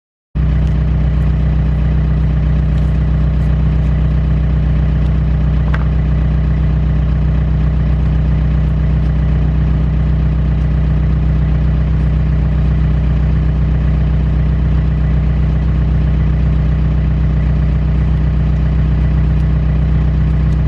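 Mustang 940E skid steer's Yanmar diesel engine running steadily at an even speed, cutting in abruptly just after the start.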